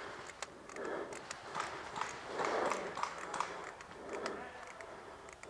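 Rustling and shuffling movement with scattered sharp clicks and taps.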